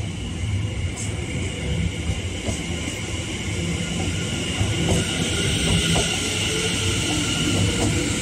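Greater Anglia Class 720 Aventra electric multiple unit rolling past along the track: a low wheel-on-rail rumble with a few clicks and a steady high whine. It gets louder from about halfway through, as a hiss builds over the rumble.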